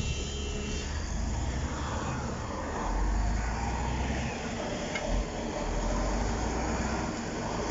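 Diesel engines of a Shantui SD16 crawler bulldozer and a hydraulic excavator running steadily under load as they push over a large uprooted tree, with a low rumble throughout. A short knock about five seconds in.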